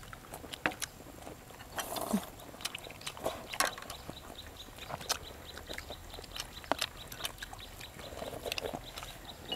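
People eating chicken curry with bread, close to clip-on microphones: chewing and mouth sounds, with scattered sharp clicks of spoons and chopsticks against ceramic bowls.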